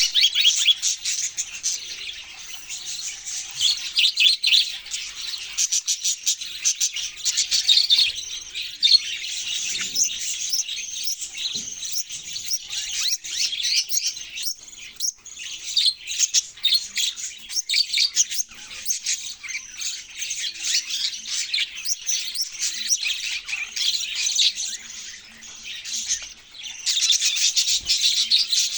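A group of budgerigars chirping and chattering nonstop, a dense stream of quick high chirps that thins briefly near the end and then picks up again.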